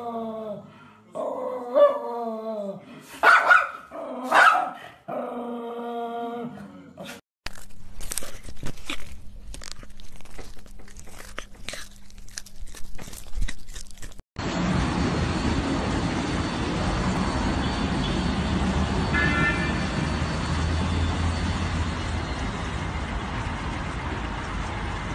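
A golden retriever puppy gives about five drawn-out, pitched howl-like calls. The puppy's calls give way to a run of sharp clicks as a cat chews its food. A steady rushing noise from the spinning brushes and water spray of an automatic car wash takes over about halfway through.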